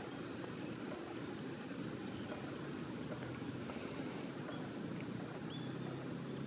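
Quiet outdoor ambience: a faint steady low rumble with short, high chirps repeating every half second or so, and one short rising chirp near the end.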